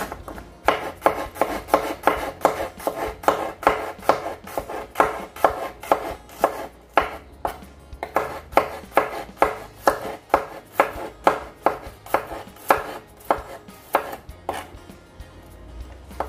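Chef's knife slicing shallots, garlic and bird's-eye chilies on a cutting board: steady knocks of the blade on the board, about three a second, with a short pause near the end.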